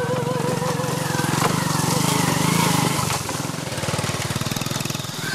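Small motorcycle engine of a Cambodian tuk-tuk (remork) running as it drives along. It is loudest about two to three seconds in and eases off after that, with a held sung note from background music fading out in the first second.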